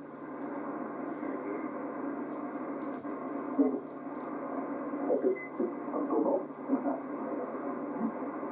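A CB radio receiver tuned to the 26 MHz freeband: steady static hiss and hum, with weak, broken voices of distant stations faintly coming through about halfway in.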